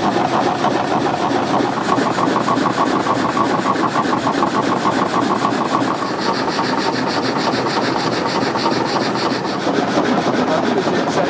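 Belt-driven horizontal log frame saw cutting through a log: the blade rasps back and forth in a rapid, steady rhythm over the running drive gear.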